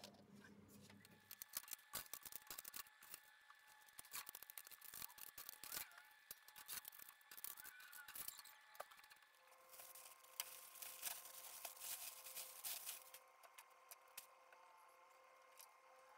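Dry aspen-fibre swamp cooler pad being pulled and torn out of its panel by hand: quiet, irregular crackling and scratchy rustling of the stiff wood fibres.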